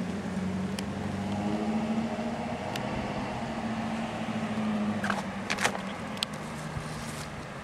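A motor's steady hum that fades near the end, with a few sharp clicks about five seconds in.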